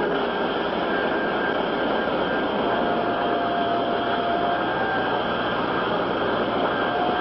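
Boeing 367-80's four Pratt & Whitney JT3 turbojets running, a steady rushing noise with a thin high whine that steps up slightly in pitch near the end, as the jet moves along the runway.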